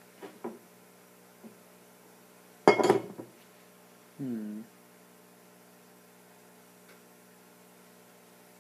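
Glassware handled on a tabletop: a few light clicks, then a loud clatter of several quick knocks about three seconds in, over a steady electrical hum.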